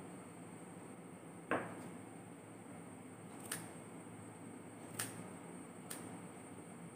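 Scissors snipping woollen yarn while trimming a pompom: three short, sharp snips in the second half, each a second or so apart. About one and a half seconds in there is a single louder knock.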